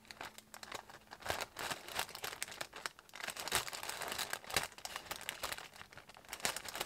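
Tissue paper rustling and crinkling under a hand, with small irregular clicks and scratches, as a craft knife cuts through the sticker sealing the wrapping.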